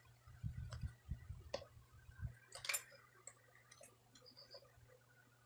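A few faint, sharp metallic clicks and soft knocks from a half-laced motorcycle wheel with loosely fitted spokes and nipples being handled, with the clearest click a little under three seconds in.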